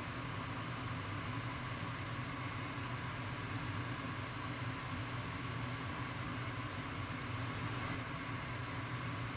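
Steady hum and airy hiss of a workshop ventilation fan running without change.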